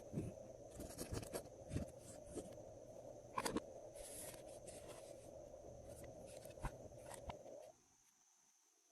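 Hands kneading and squishing glossy slime: sticky, wet squelching with many small clicks and pops, which cuts off suddenly near the end.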